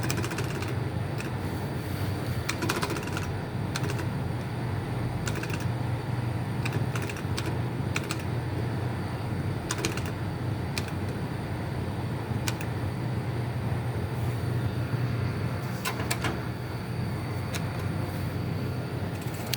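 Steady low hum of slot machines on a casino floor, with scattered sharp clicks at irregular intervals.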